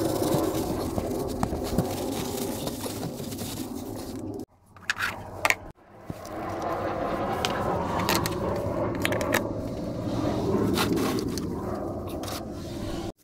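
Steady workshop background noise with scattered clicks and scrapes of gloved hands handling engine parts, the oil filler cap and a plastic funnel. The sound breaks off abruptly a few times.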